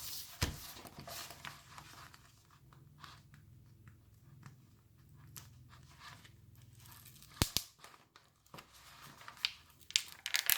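Stiff diamond painting canvas being handled and smoothed flat by hand: rustling and crinkling with scattered clicks, and a sharp tap about seven and a half seconds in.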